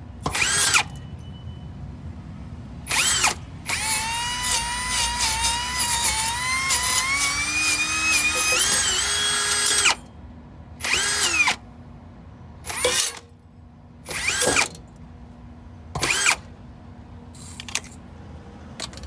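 Handheld electric power tool cleaning over fresh welds on a car. It runs in short bursts, then in one long run of about six seconds whose whine rises in pitch. It ends with several more short bursts.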